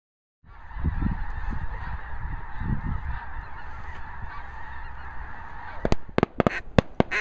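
A large flock of geese honking together in a dense, continuous chorus, with a low rumble beneath. About six seconds in, shotgun shots ring out, around five in quick succession.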